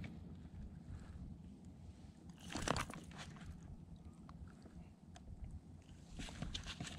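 Crunchy rustling and scraping handling noises over a low rumble, with one louder scrape about two and a half seconds in.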